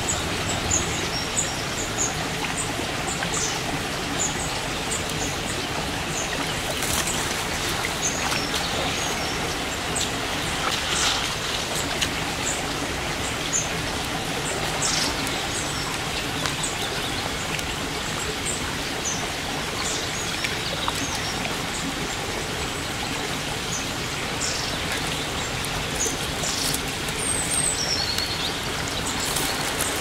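Small mountain stream flowing steadily over stones, with many short, high bird chirps scattered throughout.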